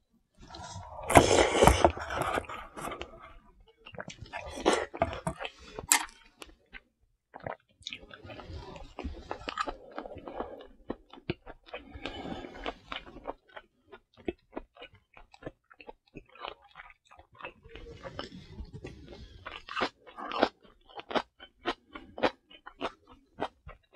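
A man chewing close to a clip-on microphone as he eats cup ramen and spicy stir-fried pork: a loud mouthful taken from the ramen bowl about a second in, then many small, sharp, wet chewing clicks.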